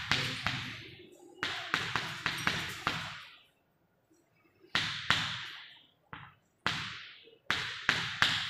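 Chalk tapping and stroking on a blackboard as numbers are written and lines drawn: clusters of quick, sharp taps, each with a short echo in the room, with a pause of about a second in the middle.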